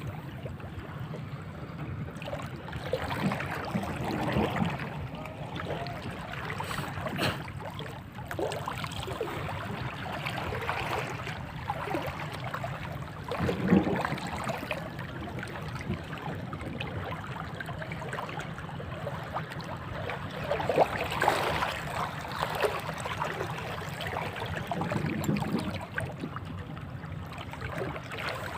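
Sea water lapping and washing, with louder surges every few seconds.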